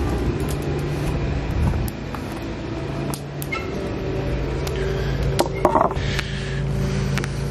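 A steady engine drone from a motor running. A few sharp knocks and scuffs come about five and a half seconds in.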